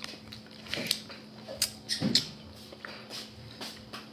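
Close-up eating sounds: wet chewing and lip smacking with scattered sharp clicks as prawn shell is peeled and eaten by hand. A brief, louder low sound about two seconds in, over a faint steady electrical hum.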